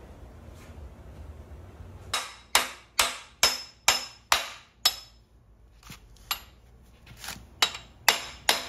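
Hammer striking metal in sharp, ringing taps, about two a second: one run of hard strikes, a short pause, then a second run of lighter ones, as a part is driven onto the front of an LS V8 engine.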